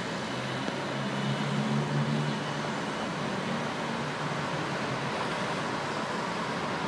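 Busy city street traffic noise, steady throughout. A passing vehicle adds a low drone that swells about a second in and fades after two and a half seconds.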